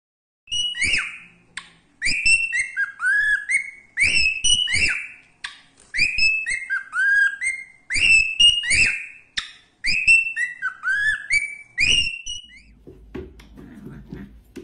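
Cockatiel whistling a repeated phrase of sliding, falling and rising notes, over and over at roughly two-second intervals; the whistling stops near the end.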